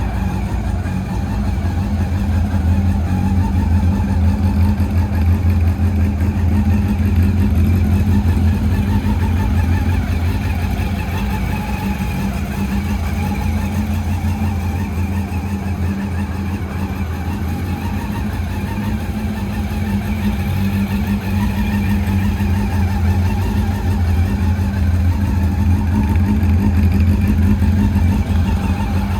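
Honda CB400 Super Four VTEC Spec3's inline-four engine running steadily through an aftermarket silencer, its level swelling slightly a few times.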